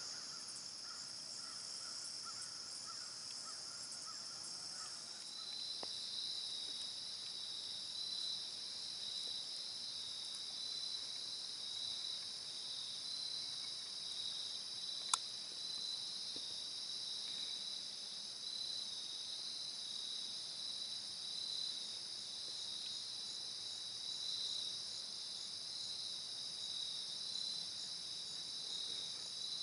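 Evening insect chorus: steady, high, pulsing cricket-like trills at two pitches, the lower of the two joining about five seconds in. A fainter, lower pulsed trill drops out at about the same time, and there is a single sharp click about halfway through.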